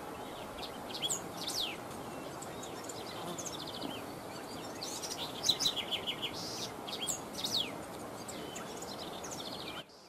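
Small songbirds calling in the open: scattered sharp, high downward-sweeping chirps and a few quick rapid trills over a steady background hiss. The sound cuts off abruptly near the end.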